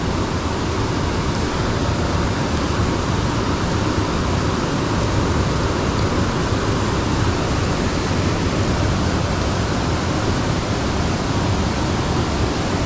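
Steady rushing of flowing water in an irrigation ditch: an even hiss that holds level throughout.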